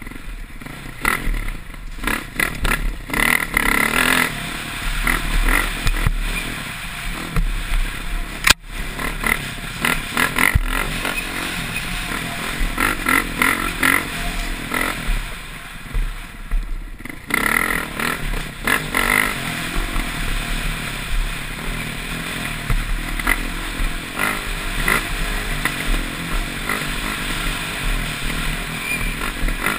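Dirt bike engine heard from the rider's helmet, revving up and dropping off in rapid surges under hard riding, with many short knocks and one sharp knock about eight and a half seconds in.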